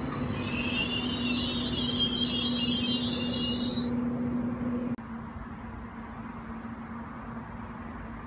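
Abellio Stadler FLIRT electric multiple unit rolling slowly along the platform: a steady hum with a wavering high squeal from the wheels for the first four seconds. About five seconds in the sound drops suddenly to a quieter, steady hum.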